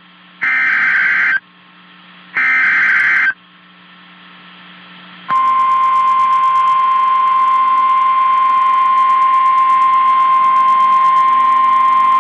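Emergency Alert System header tones: two harsh, screeching data bursts, each about a second long and about a second apart. About five seconds in, the steady single-pitch NOAA Weather Radio warning alarm tone starts and holds, announcing that a new warning is about to be read.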